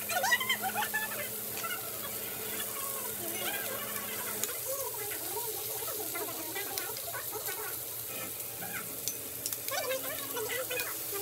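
Pork belly, shrimp and mussels sizzling on a tabletop grill plate, with metal tongs clicking now and then as the pieces are turned.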